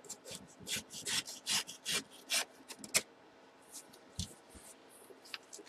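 Paper envelope being opened by hand: a quick run of scraping, rasping paper strokes for about three seconds, then a few lighter rustles and a soft knock about four seconds in.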